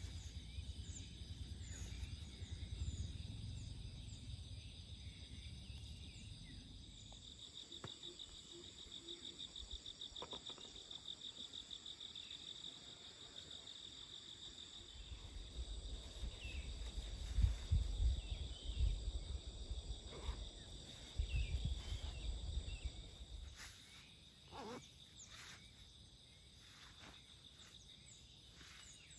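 Forest insects keeping up a steady high-pitched chorus, with a pulsing trill a quarter of the way in and a few short high chirps scattered through. Low rumbles come and go beneath it, strongest just past the middle.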